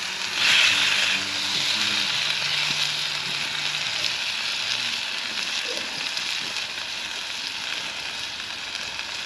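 Chicken bites frying in hot fat, a steady sizzle that surges louder about half a second in and then eases off a little.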